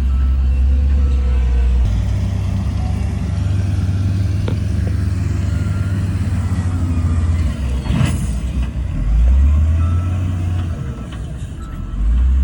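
Heavy diesel earthmoving machinery running with a deep, steady engine drone that shifts in pitch a few times. About eight seconds in there is a short, sharp burst of noise.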